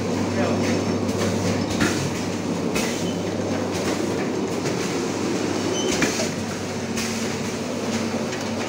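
Pneumatic form-fill-seal detergent packing machine running: a steady mechanical hum and clatter, with a short sharp click-and-hiss roughly once a second as it cycles.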